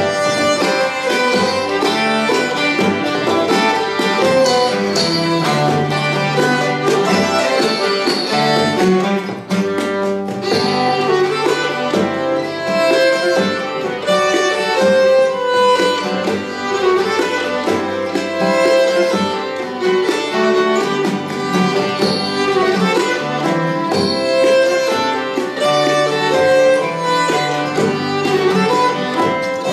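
Acoustic string band playing live: fiddle over plucked guitar and banjo, with a moving bass line.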